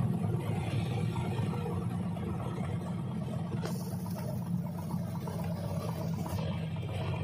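Single-engine light airplane's piston engine and propeller running steadily at high power, a continuous low drone, heard from inside the cockpit during the runway roll.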